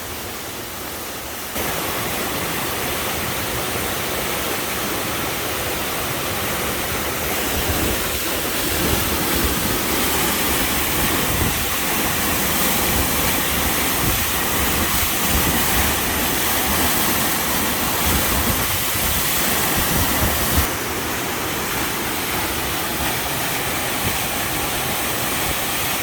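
Waterfall pouring steadily at its foot, a continuous rush of water with a low rumble underneath. It jumps louder about a second and a half in and eases a little about two-thirds of the way through.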